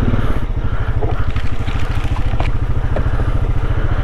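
Small ATV engine running, its rhythm dropping to a slower, evenly pulsing idle about half a second in.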